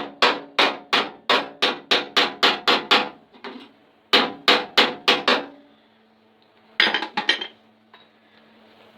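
Hammer striking the steel wing panel of an Austin A30, knocking down a spot that sits a little high. It comes in a steady run of about three blows a second, then a pause, about five more blows, and a quick cluster of lighter taps a couple of seconds later. The metal rings briefly after each blow.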